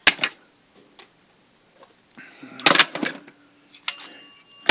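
Sharp knocks and clatter of hard objects being handled and set down, in a few separate bursts, with a faint short tone shortly before the end.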